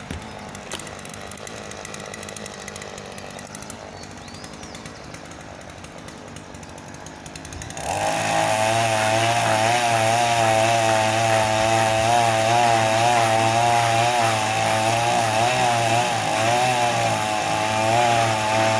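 Chinese-made chainsaw running at low speed for several seconds, then throttled up about eight seconds in to run loud at high revs, its pitch wavering up and down.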